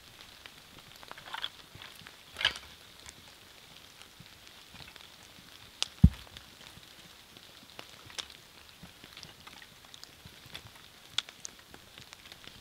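Steady rain with scattered single drops ticking. There is one loud, low thump about six seconds in.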